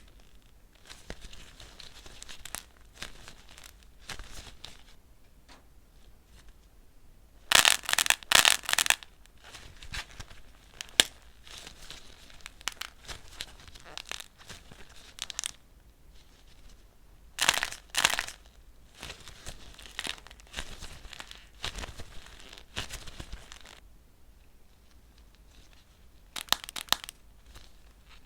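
Crisp dried clay cracking and crumbling as it is broken apart: loud bursts of crackling several times, with lighter crinkly crackles in between.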